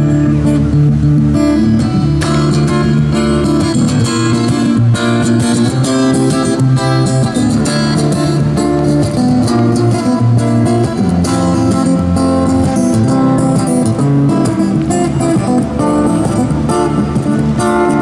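Takamine acoustic-electric guitar played through a Roland amplifier, picking a lively melody of quick notes over a steady bass line without a break.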